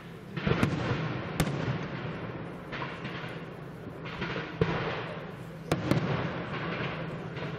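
Professional fireworks display: aerial shells bursting overhead, with several sharp bangs (about five, two of them close together near the end) over a continuous rushing noise of launches and bursts.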